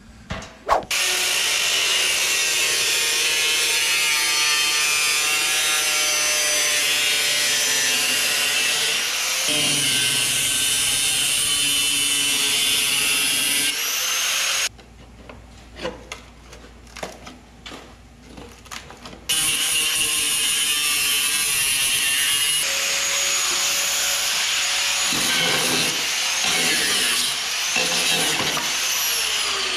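Cut-off wheel tool (zip cut) cutting through the rusty sheet metal of a pickup's cab corner with a steady high whine. About halfway through it stops for a few seconds, with only a few light knocks, then cuts again and winds down near the end.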